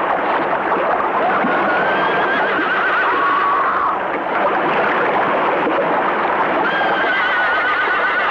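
Horses whinnying, two long wavering whinnies, the first starting about a second in and the second near the end, over a dense, steady wash of splashing water.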